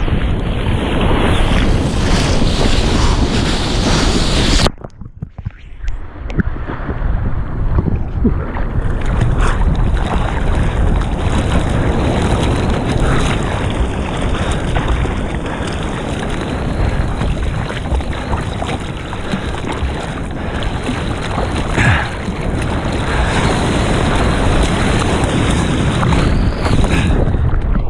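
Ocean water sloshing and surf noise close against a head-mounted action camera out in the waves, with some wind on the microphone. About five seconds in the sound suddenly turns quieter and muffled for a second or so, then the full water noise returns.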